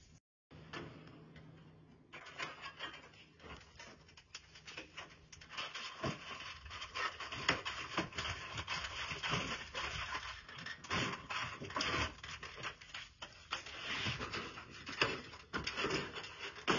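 Clecos and Cleco pliers being worked into a thin aluminium aileron skin: dense, irregular small clicks and light metal rattling, starting about two seconds in after a faint stretch.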